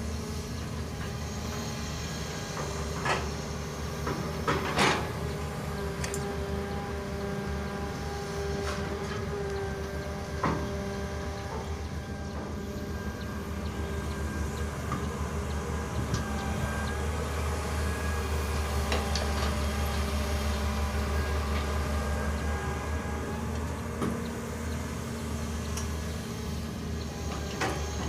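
Hitachi UH083 long-arm hydraulic excavator's diesel engine running steadily under hydraulic load, with a steady whine over the engine note. A few sharp clanks come from the arm and bucket as it swings and digs soil, and the engine gets a little louder for several seconds past the middle.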